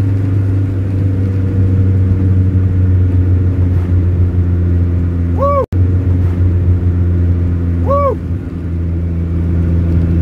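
Turbocharged Honda H22 engine of a Prelude cruising steadily, heard from inside the cabin. Two short rising-then-falling tones sound about halfway through and again near the end, and the sound drops out for a split second at about the midpoint.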